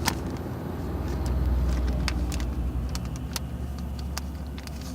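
Steady low hum of an idling vehicle engine, with scattered light clicks of things being handled.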